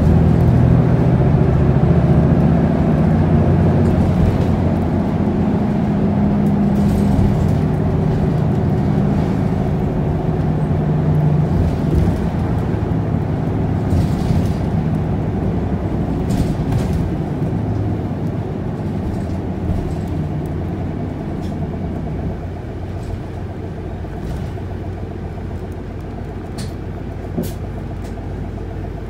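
Interior running sound of an Isuzu Erga city bus (PKG-LV234L2), its straight-six diesel droning low under steady tyre and road noise as it drives along. The drone fades and the whole sound grows quieter in the second half, with a few light clicks and rattles from the cabin.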